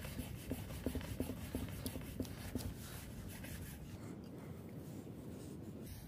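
Wooden stick rubbed hard back and forth along a fallen log, a quick scraping of wood on wood at several strokes a second, to make heat by friction for a fire. The strokes die away about three seconds in.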